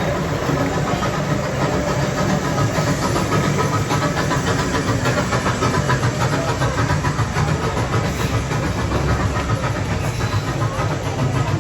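Battery-powered CP Huntington miniature train running along its track: a steady, loud rumble of wheels and coaches.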